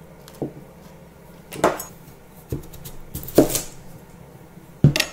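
Pumpkin pieces and kitchen utensils handled on a wooden cutting board: several separate knocks and clatters, the loudest about three and a half seconds in.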